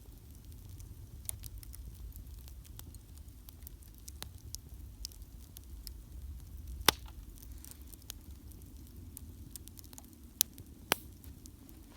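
Wood campfire crackling with scattered sharp pops and snaps over a low steady rumble; the loudest snap comes about seven seconds in, and two more come close together near the end.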